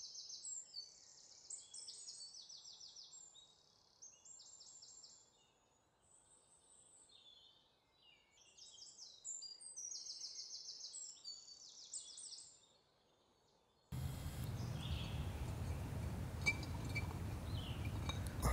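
Songbirds singing in woodland: short trilled phrases repeated again and again, with a few quiet gaps. About fourteen seconds in, a steady rushing noise with a low rumble cuts in suddenly and covers them.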